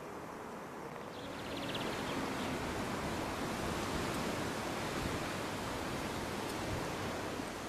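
Steady rushing noise of wind outdoors, growing louder about a second in, with a brief faint run of rapid ticking soon after.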